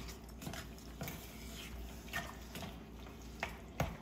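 Wooden spoon stirring cherries and their juice in a stainless steel saucepan, with soft wet stirring and several light knocks of the spoon against the pan.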